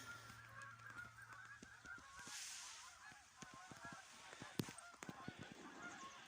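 A flock of geese honking faintly in the distance, many calls overlapping, with a few faint knocks and one sharper click about four and a half seconds in.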